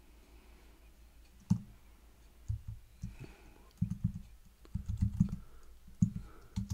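Typing on a computer keyboard: a single keystroke about a second and a half in, then quick irregular runs of keystrokes.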